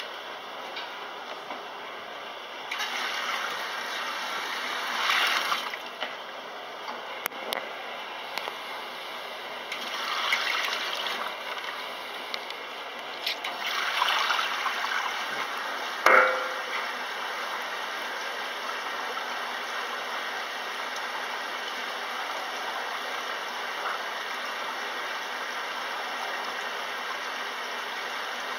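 Maytag commercial top-load washer filling its tub with water, a steady rushing with a few louder swells. About sixteen seconds in the lid shuts with a knock, and the filling carries on quieter and steady.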